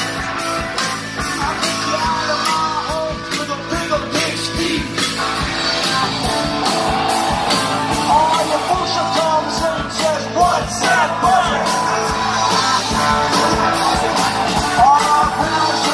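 A live polka-rock band playing loud: electric guitar, electric bass and drum kit, with a melody line bending up and down over the top.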